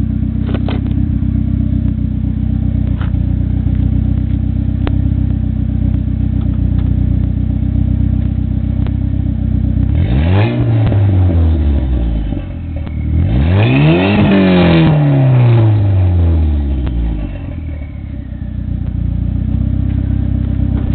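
A first-generation DSM's turbocharged 4G63 four-cylinder, with a 3-inch turbo-back exhaust and a dual-chamber Flowmaster muffler, idles steadily. It is then revved twice in the driveway: a short blip about ten seconds in, then a longer, louder rev held briefly before the revs fall back to idle.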